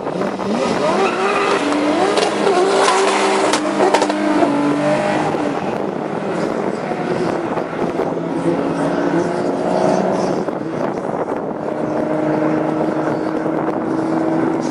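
Two cars launching in a drag race, one of them a turbocharged Volkswagen Golf Mk1 (R38 Turbo): the engines rev hard and climb in pitch, dropping and climbing again through several gear changes as they run down the strip. A few sharp cracks come between about two and four seconds in.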